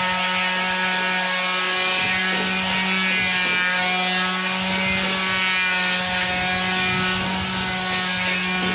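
A motor running at a steady, unchanging pitch, with light clicking and rattling over it.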